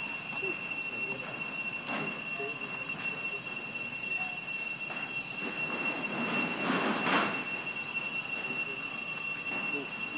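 Cicadas droning in one steady high-pitched tone over forest ambience, with a brief rustle about six to seven seconds in.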